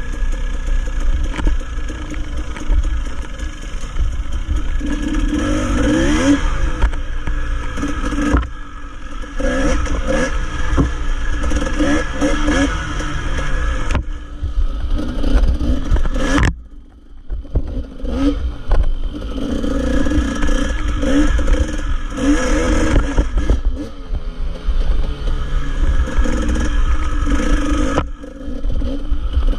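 Dirt bike engine revving up and down as it is ridden along a rough trail, its pitch rising and falling with the throttle. There is a brief lull about two-thirds of the way through as the throttle is rolled off.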